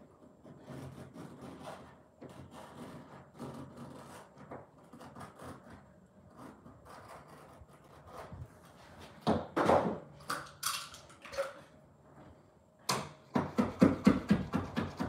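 Carpet edge being worked along a skirting board with hand carpet-fitting tools: scattered scrapes and scratches, a couple of louder scrapes about two-thirds of the way through, then a quick run of even strokes about four a second near the end.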